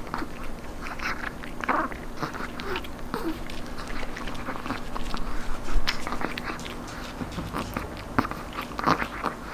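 Chihuahua gnawing and crunching a dried, crispy duck knee cartilage treat: a steady run of irregular crisp crunches and bites.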